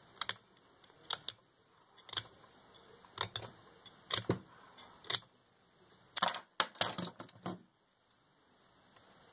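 Knife whittling a small wooden dowel by hand: irregular sharp clicks and short scrapes, one or two every second, bunching into a quick run of clicks about six seconds in.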